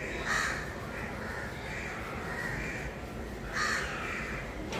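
Birds calling in the background: several short calls, the loudest about half a second in and again near the end, with fainter ones between.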